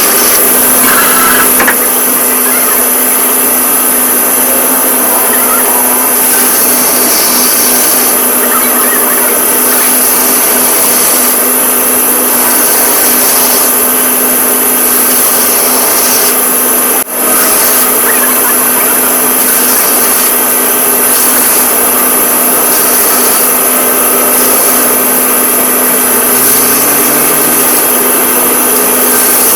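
A woodworking power tool running steadily and loudly, with a constant hum under a high hiss. It breaks off for a moment about halfway through, then carries on.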